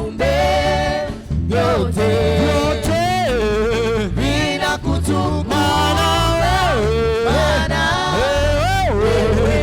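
Praise song with a band: singing over a strong, steady bass.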